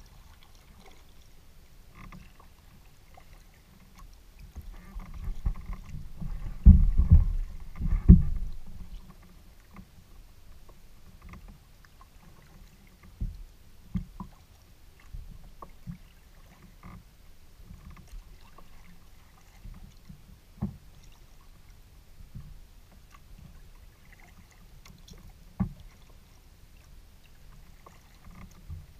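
Paddling a Delta 12.10 kayak, heard from a camera on its bow deck: paddle strokes and water over a steady low rumble, with scattered short clicks and knocks. A cluster of loud low thumps comes about seven and eight seconds in.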